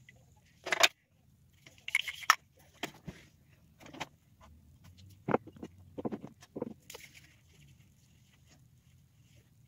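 Handling noise close to a phone's microphone: irregular short clicks, knocks and rustles as things are picked up and set down and the phone is touched, about ten in all, the loudest cluster about two seconds in.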